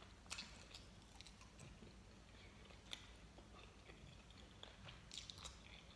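Faint chewing of gummy candy, with a few soft, sticky clicks from the mouth now and then.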